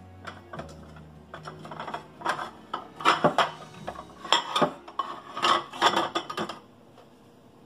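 Plates clinking and knocking against each other as one is lifted off a stack in a cupboard: a run of sharp clinks, loudest in the middle, that stops about a second before the end.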